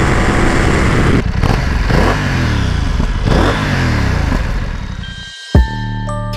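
BMW F 900 XR's parallel-twin engine under way, its note rising and falling several times as it is revved. It fades out near the end, and music starts with a loud hit about five and a half seconds in.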